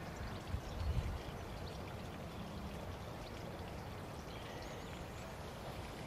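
Wind blowing through trees, a steady rustling hiss, with wind buffeting the microphone in a couple of low rumbles in the first second.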